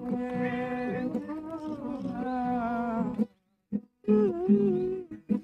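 Male voice singing a long held, wavering note over acoustic guitar. It cuts off abruptly about three seconds in, and a shorter sung phrase follows after a silent gap. The abrupt drop-outs come from a noise reducer gating the recording.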